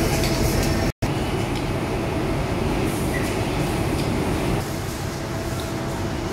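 Steady noise of factory machinery running on a production floor. It cuts out completely for a moment about a second in and runs a little quieter from about four and a half seconds in.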